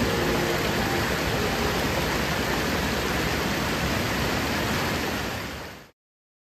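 Water of a mountain stream splashing over boulders in a small cascade, a steady rush that fades out to silence near the end.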